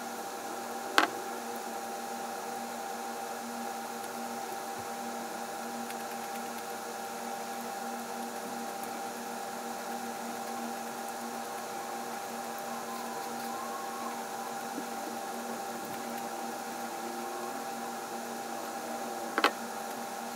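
Steady electrical hum made of several fixed tones over a light hiss, with two sharp knocks, one about a second in and one near the end.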